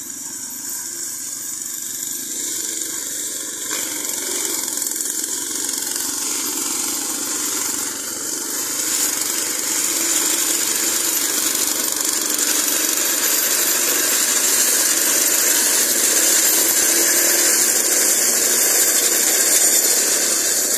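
Twin small engines (325 cc in all) of a tracked brush-cutting machine running steadily while it cuts through ferns and brush, growing louder as the machine comes closer.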